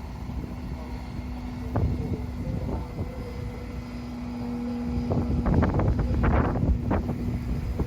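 Strong wind buffeting the microphone, growing louder about five seconds in, over the steady hum of the aerial ladder truck's engine.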